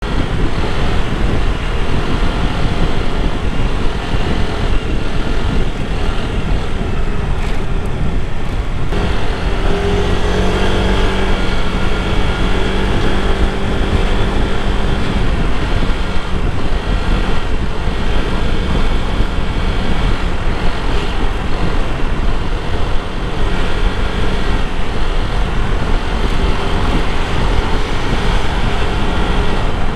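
Honda PCX scooter on the move: its single-cylinder engine running under steady wind and road rumble on the microphone. About nine seconds in the engine note rises and holds steady for several seconds as it pulls away.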